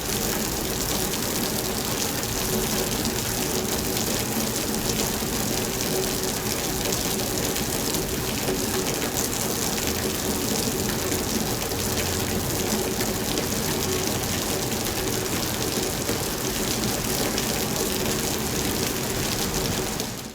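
Steady, heavy rain falling as a dense, even hiss, fading out at the very end.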